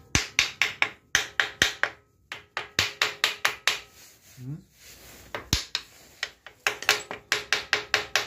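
Hammer tapping on the Lifan 150cc ATV engine's casing to loosen a stuck part, in quick runs of sharp metallic taps about six a second, with short pauses and a couple of single knocks between them.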